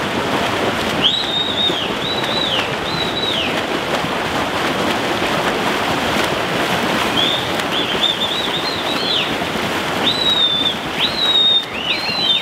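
Steady splashing of several swimmers swimming freestyle in a pool. Over it, birds chirping in short arched calls, in clusters about a second in, again from about seven seconds, and near the end.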